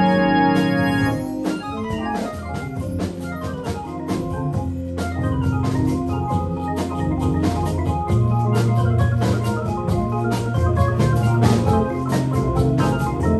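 Live small band playing: an electric keyboard on an organ sound takes the lead over double bass and drums. A held chord dies away about a second in, then runs of short keyboard notes over a steady percussion beat.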